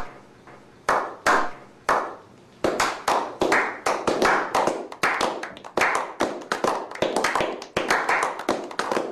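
A slow clap: a few lone hand claps spaced out at first, then from about two and a half seconds in several people clapping together, quicker and overlapping.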